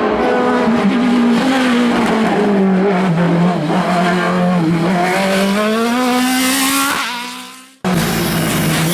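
Racing car engine at full throttle on a hillclimb; its pitch dips and then climbs steadily as the car pulls through the gears. Around seven seconds in the sound fades away, then cuts sharply back to a loud race engine near the end.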